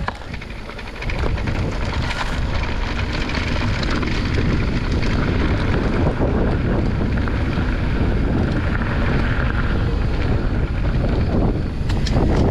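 Wind rushing over the microphone of a camera carried on a moving mountain bike, with trail noise and rattling from the bike underneath; it gets louder about a second in as the speed picks up.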